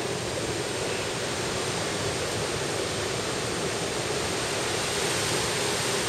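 Mountain stream rushing steadily over rocks, running high with snowmelt.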